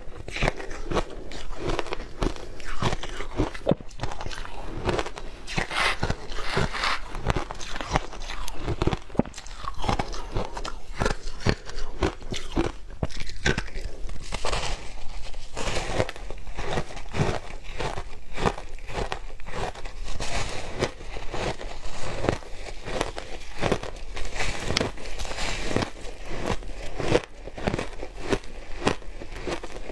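Close-up crunching and chewing of shaved ice: a continuous run of sharp, crisp bites and crunches, several a second.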